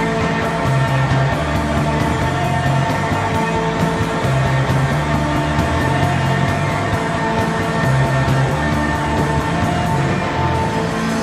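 A live rock band playing an instrumental stretch without vocals: guitars and bass over a steady beat.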